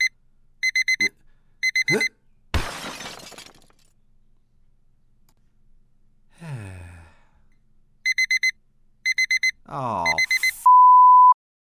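An electronic alarm beeping in quick groups of four high beeps, about one group a second. It stops after a short crash about two and a half seconds in and starts again about eight seconds in. Several sounds slide steeply down in pitch between the beeps, and a steady single-pitch bleep sounds for under a second just before the end.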